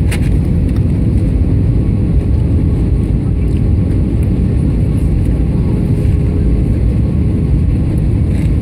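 Steady cabin roar of a jet airliner on its descent to land: engine and airflow noise heard from a window seat over the wing, loud and heavy in the low end.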